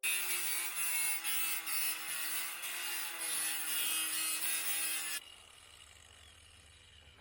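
A power tool working wood: a loud, steady, hissing cut that starts abruptly and stops suddenly about five seconds in, leaving a faint low hum.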